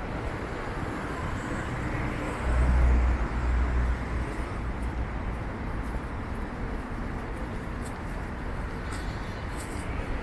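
City street ambience with steady traffic noise; a louder low rumble comes in between about two and four seconds in.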